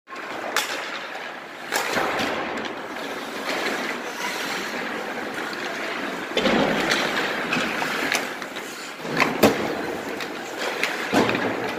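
Hockey skate blades scraping and carving on the ice in a few short swells, with several sharp clacks of sticks and pucks.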